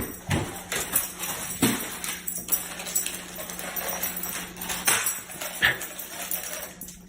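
A dog's collar tags jingling as it moves about, with scattered sharp clicks and knocks.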